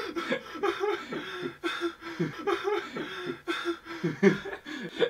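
Young men laughing hard: a long run of short, repeated pitched ha-ha bursts without words.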